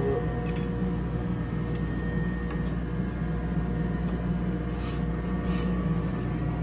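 Steady hum of grinding-shop machinery running, with a few light metal clicks as a carbide-tipped circular saw blade is handled and fitted onto a grinder's arbor.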